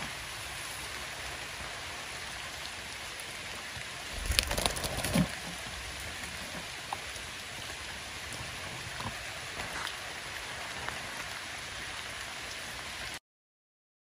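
Steady rain pattering on forest foliage, an even hiss throughout. About four seconds in, a brief louder rumble with a few knocks; the sound cuts out completely about a second before the end.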